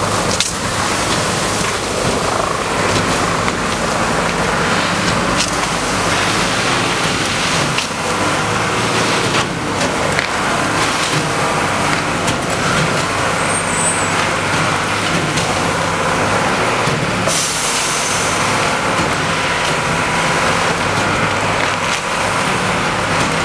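Police water cannon truck running with its water jet spraying: a steady engine and pump drone under a loud, continuous rush of water, with a few sharp clicks here and there.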